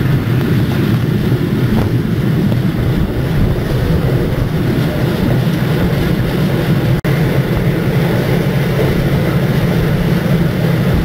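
Steam-hauled passenger train running at speed, heard from the open doorway of a wooden coach: a loud, steady rumble of the wheels on the rails.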